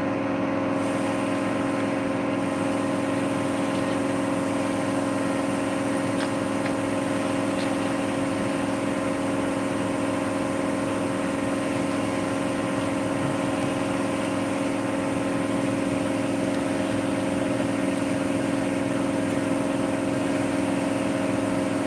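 A steady machine hum at one constant pitch, holding an even level without change.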